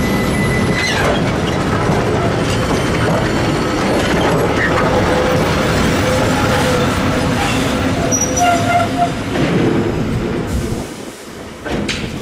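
Loaded 900 mm narrow-gauge limestone hopper train and its center-cab electric locomotive rolling past close by: a steady rumble of steel wheels on rail, with clicks over the rail joints and thin wheel squeals. The sound fades from about ten seconds in as the locomotive draws away.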